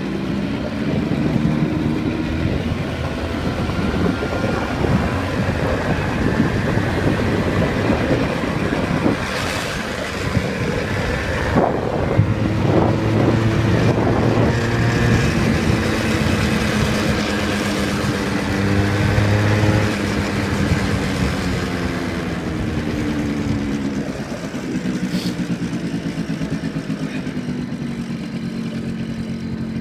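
Yamaha motorcycle engine running under way as it is ridden. Its pitch rises and falls several times with throttle and gear changes, and there is a brief click near the end.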